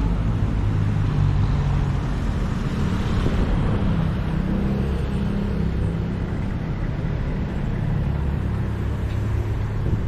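Street traffic: vehicle engines running with a steady low rumble.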